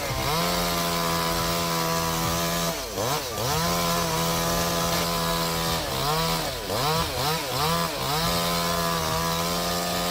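Chainsaw running at high revs, its engine pitch dropping sharply and climbing back once about three seconds in and several times in quick succession a little later.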